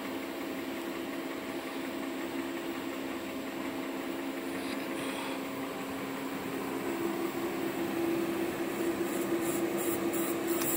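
Steady hum with a few constant tones from a water-cooled orbital TIG welding machine, growing somewhat louder about seven seconds in.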